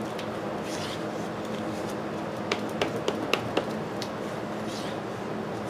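Plastic spreader mixing two-part body filler on a taped-down magazine page: soft smearing scrapes, with a quick run of about five sharp clicks and slaps midway, over a steady low hum.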